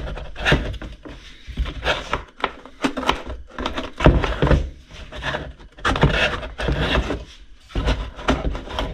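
A KTM 250 SX's plastic air filter box being wiggled and worked off the subframe by hand, with repeated irregular knocks and scraping of plastic against the frame.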